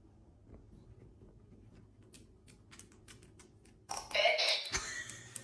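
A dog's claws clicking and tapping lightly on a hard floor and button pads, then a louder, noisy sound about four seconds in.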